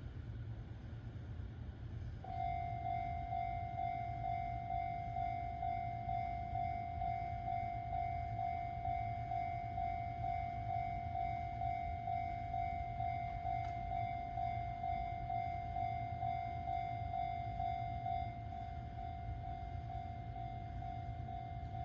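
Japanese railway level-crossing warning bell starts about two seconds in and rings with an even, repeating electronic ding, a little quieter near the end. A steady low rumble runs underneath.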